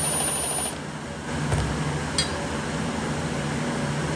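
Milwaukee Fuel cordless driver spinning a small screw with a high whine for under a second, then stopping. A dull thump and a sharp click follow about a second later, over a steady fan hum.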